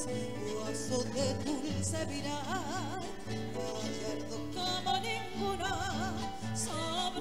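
Music: a song with a singer holding long notes with vibrato over a steady bass line.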